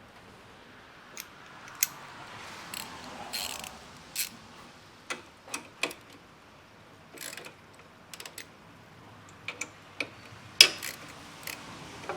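Irregular metallic clicks and taps from hand tools working the bolt on a light mount's bar clamp as the fog light is adjusted and tightened, with one sharper click about ten and a half seconds in.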